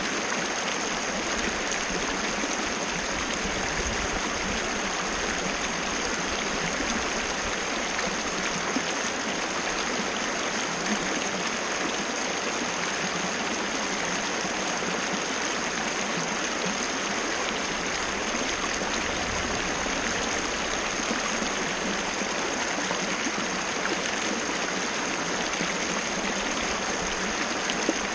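A waterfall of water falling and splashing in a steady, even rush that never changes in level, with a thin steady high tone over it.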